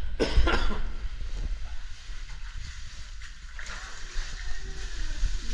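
Scuffing and rustling of cavers' suits and boots against wet, muddy rock as they climb through a narrow cave passage, over a low rumble of camera handling noise. The loudest scraping comes about half a second in, then fainter rustling and hiss.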